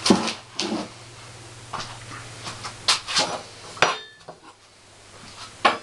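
A series of separate knocks and clinks of objects being handled, about eight in all, some with a dull thump. A steady low hum runs underneath and cuts off with a sharp knock a little under four seconds in.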